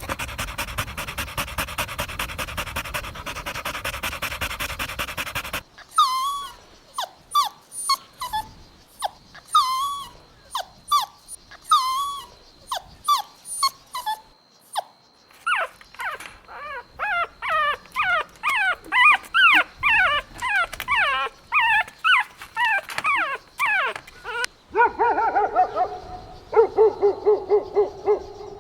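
Music for the first six seconds or so, then a puppy whimpering: short, falling whines, one or two a second, that speed up into a rapid run of whimpers and yelps from about halfway through. Near the end they turn into a quick string of lower yelps.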